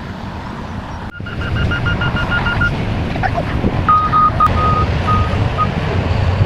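Heavy earthmoving machinery running with a low diesel rumble, along with electronic warning alarms: a fast run of high beeps starting about a second in, then slower, uneven beeps from about four seconds in, like a travel or reversing alarm.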